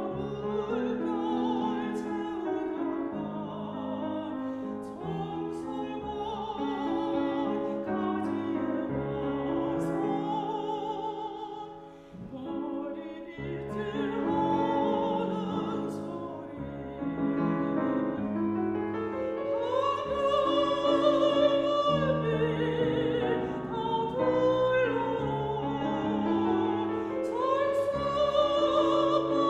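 A mezzo-soprano sings a Korean art song with vibrato over piano accompaniment. The music dips briefly about twelve seconds in, then swells with long held notes.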